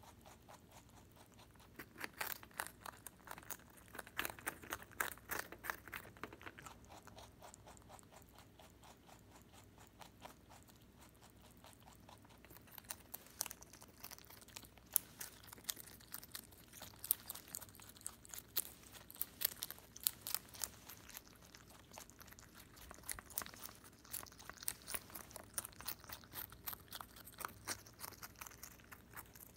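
Holland Lop rabbit chewing a cabbage leaf: fast, crisp crunching in bouts, with a lull of several seconds about a quarter of the way in.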